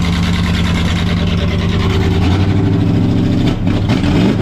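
NASCAR Busch Series stock car's V8 running loudly at a steady idle; about two seconds in the revs rise, and near the end the throttle is blipped so the engine swings up and down.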